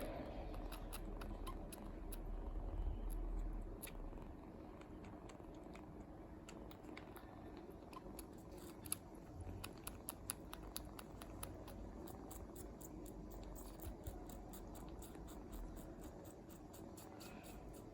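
A kitten sucking on a finger, making soft wet clicking and smacking sounds that settle into a steady rhythm of about four clicks a second in the second half, over a faint low purr.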